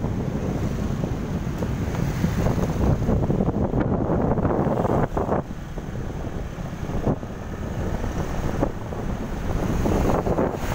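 Wind buffeting the microphone of a camera riding on a moving motorbike, a steady low rumble with gusty surges, over engine and road noise.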